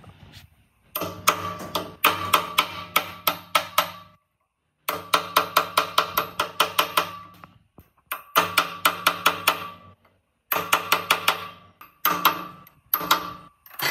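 Rapid metal-on-metal tapping on an old air compressor's crankshaft gear, about four ringing strikes a second, in several short runs separated by abrupt silences.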